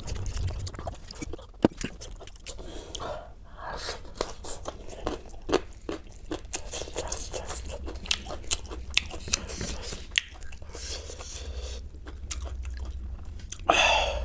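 Eating sounds: chewing and crunching food, with many short wet mouth clicks and one louder burst near the end.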